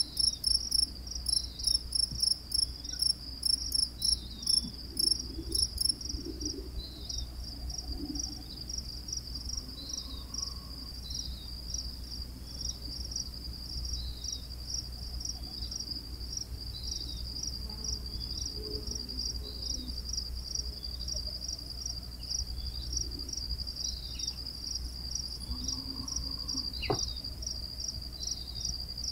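Crickets chirping: one steady, evenly repeated high chirp about twice a second, with a second, higher and faster chirper that stops about six seconds in.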